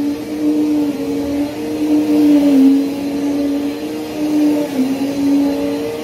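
Upright vacuum cleaner running, a steady motor hum whose pitch sags briefly a couple of times.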